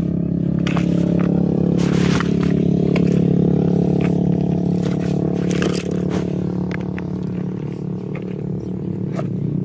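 An engine running steadily at a constant pitch, with short scrapes and clicks of gravel and fishing line being handled around a hooked turtle.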